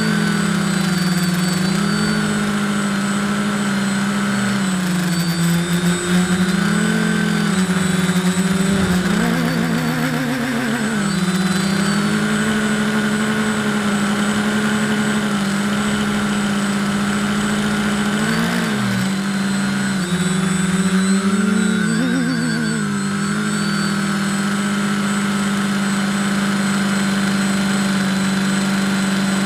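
Buzzing hum of a small drone's electric motors and propellers, heard from on board, its pitch dipping and rising several times with throttle changes.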